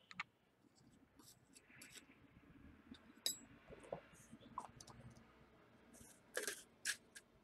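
Faint scattered clicks and light knocks from handling a copper pipe held in metal locking pliers and small items on a workbench, with a few sharper clicks near the end.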